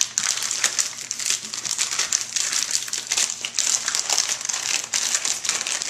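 Packaging of a one-pound Reese's peanut butter cup being picked and torn open by hand: a continuous run of crinkling and crackling.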